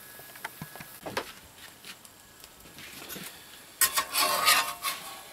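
Metal spatula scraping across the bottom of a cast iron skillet as it slides under a folded omelet to lift it out. A few light clicks come first, then a louder stretch of rasping scrapes about four seconds in.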